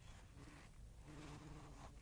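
Faint, on-and-off buzz of a bee at the flowers over a low wind rumble on the microphone.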